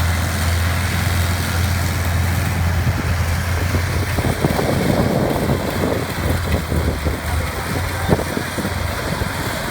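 Farm diesel engine of a tractor or rice harvester running steadily with a low hum, with irregular clattering knocks joining in from about four seconds in.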